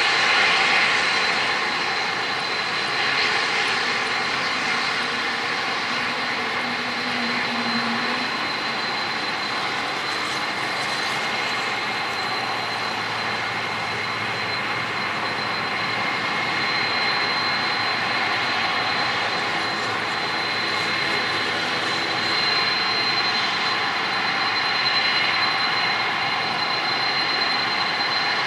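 Boeing 747-400F jet engines running steadily: a dense roar with a thin high whine held over it, swelling and easing slightly.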